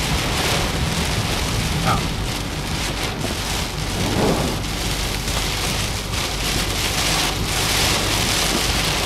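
Heavy downpour drumming steadily on a car's windshield and roof, heard from inside the car, with a steady low rumble underneath.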